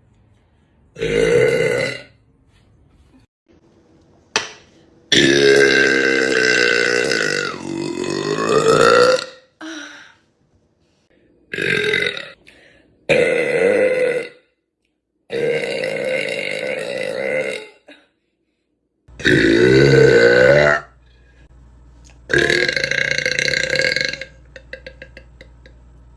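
A young woman's deliberate, loud burps: about eight in a row, most one to two seconds long and one drawn out for about four seconds, several sliding up or down in pitch.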